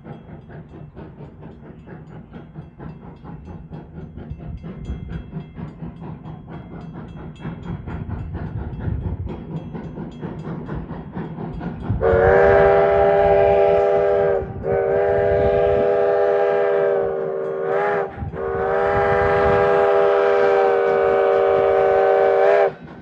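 Virginia & Truckee steam locomotive approaching with a rumbling, chuffing run that grows louder. About halfway through, its whistle sounds a chord of several tones in the grade-crossing pattern: long, long, short, long. The last blast is the longest and cuts off sharply.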